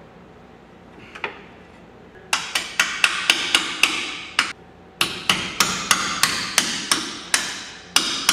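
Quick hammer blows on metal, about four or five a second, in two runs beginning about two seconds in, with a short break midway.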